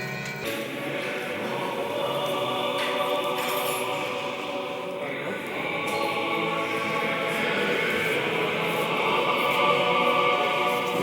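A choir singing together, many voices in chant-like song. It takes over abruptly about half a second in, where the ringing of bells cuts off.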